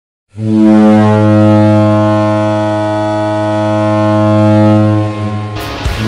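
Ice hockey goal horn sounding one long, loud, low blast for about five seconds. Near the end a song with a driving beat comes in over it.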